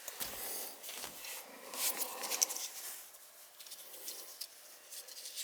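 Light scraping and small clicks of hands working with wires and tools, a little louder about two seconds in.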